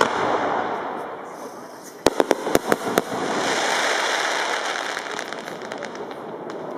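Fireworks going off: a loud bang at the start that fades out, then about six sharp reports in quick succession around two seconds in, followed by a long rushing noise as gold shells burst and trail.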